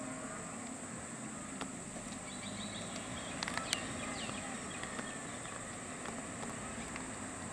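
Low steady rumble of idling vehicle engines from cars and a bus stopped on the road, under a constant high hiss, with a few sharp clicks about three and a half seconds in.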